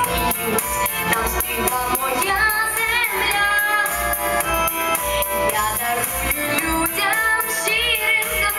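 A girl's solo voice singing a pop ballad into a microphone, amplified over a backing track with a steady beat and high percussion. Some of her held notes carry a wavering vibrato.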